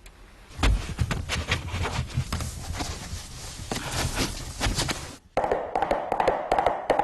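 Foley impacts made by hand: a run of irregular knocks and taps, then, after a short break about five seconds in, a quicker and more even run of knocks.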